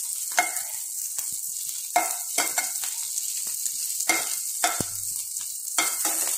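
Whole green chillies sizzling on a hot tava, with a metal spatula scraping and knocking against the pan several times as they are turned and pushed toward the middle.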